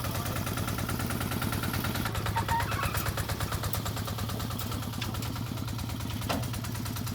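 An engine running steadily at an even speed, with a fast regular firing beat. A single sharp click about six seconds in.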